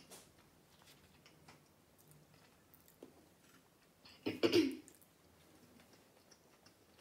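A woman's single short throat-clearing cough about four seconds in; otherwise only faint small clicks.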